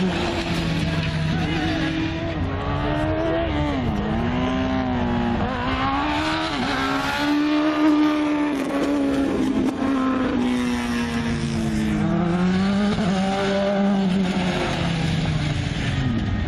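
Single-seater formula race car's engine revving hard through a slalom course, its pitch climbing and dropping again and again as the driver accelerates, brakes and shifts between the cones.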